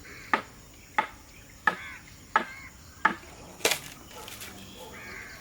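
Six chopping strikes of a blade, evenly spaced at about one every 0.7 seconds, each a sharp hit with a short ring after it.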